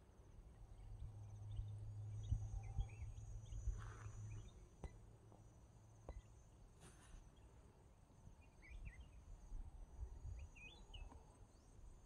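Faint outdoor rural ambience: a steady high insect trill with scattered bird chirps and a couple of brief rustles. A low steady hum drops away about four seconds in.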